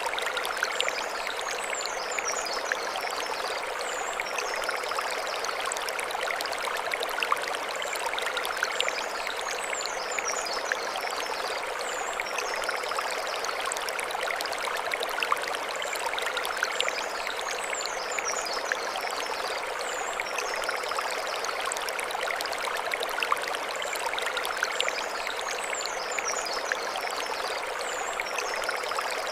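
Mountain stream rushing and splashing over stones in a steady, even wash of water. A high chirping phrase, likely a bird, recurs about every eight seconds.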